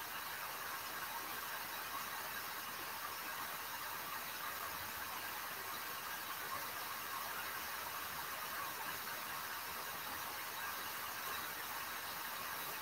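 Steady hiss of room tone and recording noise, with no distinct event.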